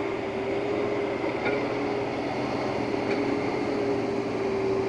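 Excavator's diesel engine running steadily, with a steady mid-pitched whine held over it and a couple of faint ticks.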